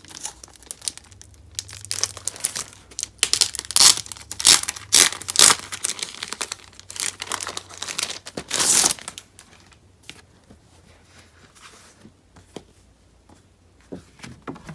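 Packaging crinkling and tearing as it is opened, with dense crackling for about the first nine seconds, then only a few light rustles.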